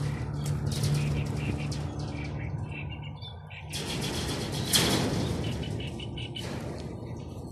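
A bird's wings flapping in noisy bursts, the loudest about five seconds in, with faint high chirps and a steady low rumble underneath.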